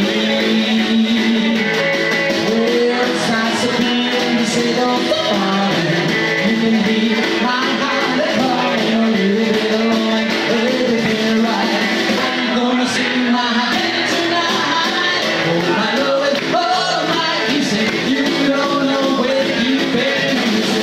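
Live rockabilly band playing: a man singing lead over a hollow-body electric guitar and a snare drum, steady throughout.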